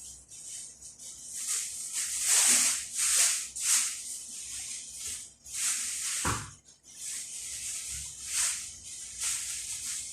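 Fava beans frying in a pan and being stirred or tossed: a run of hissing, sizzling swishes about once a second, which stop right at the end.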